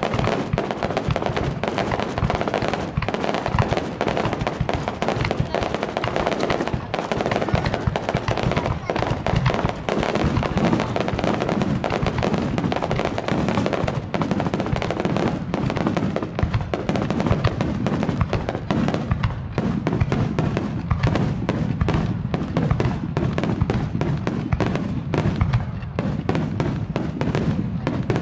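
A rapid, continuous barrage of aerial firework shells bursting, booms and crackles overlapping with no break. It is recorded through a camera's built-in microphone at a fixed level, which blunts the force of the booms.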